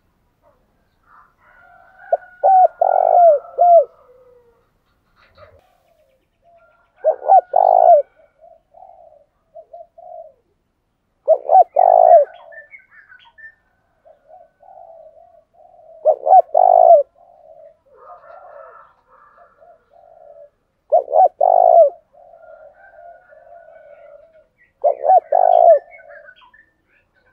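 Spotted dove cooing: loud groups of several short coo notes come about every four to five seconds, six times, with softer, running cooing between them.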